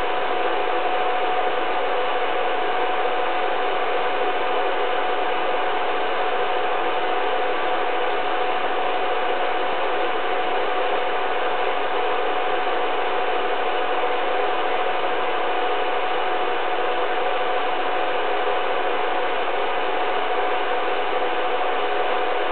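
Steady mechanical whir and hiss with one constant whine in it, unchanging in level.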